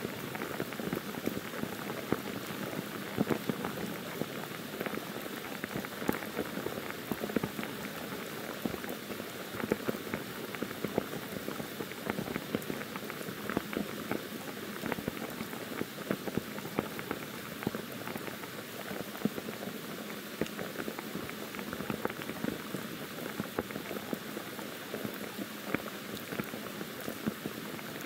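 Monsoon rain pouring steadily on forest foliage, with many individual drops hitting close by in sharp ticks over the constant hiss.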